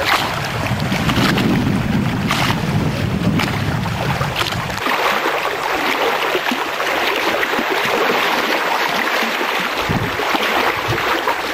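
Wind buffeting the microphone with a low rumble, over a steady rush of wind and waves on the lake shore; the rumble drops away about five seconds in, leaving the steady rush.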